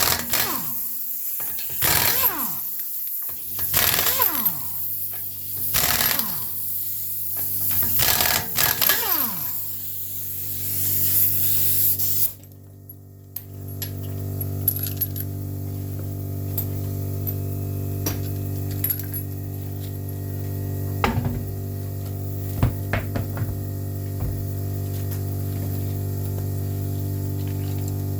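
Impact wrench with a 21mm socket spinning off the wheel's lug nuts: about six short bursts, each winding down in a falling whine. About twelve seconds in it stops and a steady low hum takes over, with occasional light clicks and knocks.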